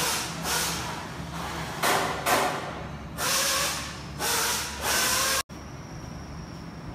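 Repeated bursts of compressed-air hissing from a factory air tool or air hose, each about half a second to a second long, over a steady low machinery hum. A little before the end the hissing cuts off abruptly, leaving only the hum.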